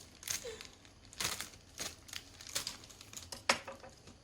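Handling of a plastic collectible figure and its parts: a handful of scattered light clicks, taps and rustles, the sharpest click about three and a half seconds in.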